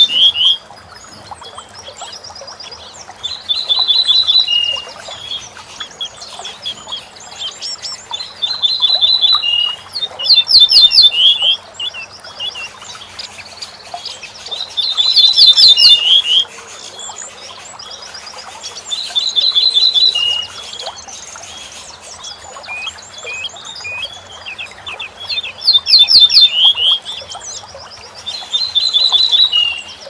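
A bunting singing its short song over and over, about seven phrases in all. Each phrase is a quick run of high, ringing notes, several dropping to a lower closing note, with pauses of a few seconds between.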